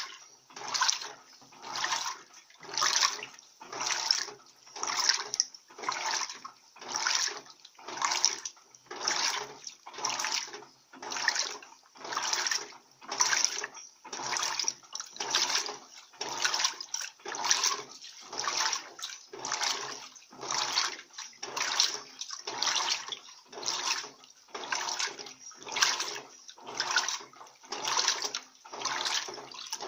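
Electrolux Turbo Economia 15 kg top-loading washing machine agitating a load of towels in water, its agitator swishing back and forth about once a second.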